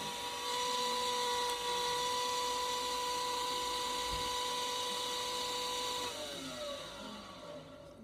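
Electric potter's wheel motor whining at a steady pitch, then winding down with a falling pitch about six seconds in as the wheel slows.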